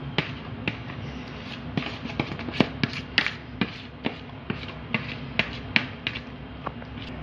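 A metal spoon tapping and scraping against a bowl: irregular sharp clicks, several a second at the busiest, as the last of the basbousa batter is scraped out into the pan. A low steady hum runs underneath.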